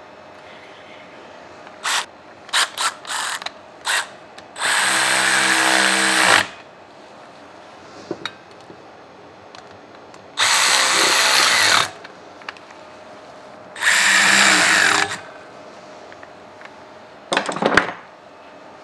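Cordless screwdriver running screws into the sheet-metal fan cover of a Baldor electric motor, in three runs of one to two seconds each. A few short clicks and knocks come before the first run.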